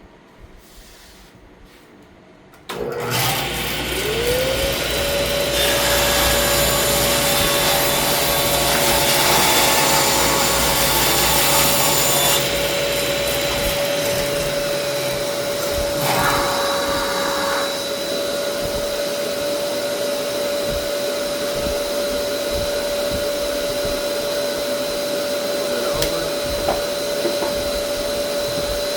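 An electric power tool's motor switches on about three seconds in, spins up to a steady high whine and runs, with stretches of rough, wood-on-tool noise over it, then winds down at the very end.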